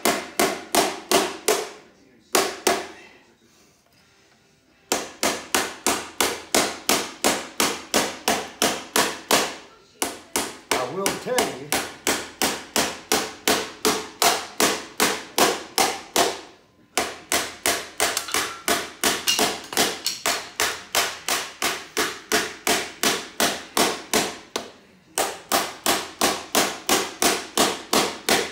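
Hand hammer pounding the bent metal chain case of a front-tine tiller against an anvil to straighten it: sharp ringing blows about three a second, in long runs with a few short breaks and one longer pause early on.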